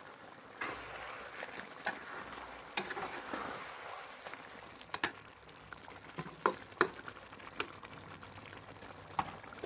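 Chicken curry simmering and bubbling in a wok while a metal spatula stirs it, with scattered sharp clicks and scrapes of the spatula against the pan.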